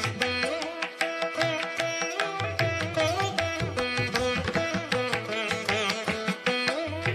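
Background instrumental music in an Indian classical style: a plucked-string melody with sliding notes over a quick run of drum strokes.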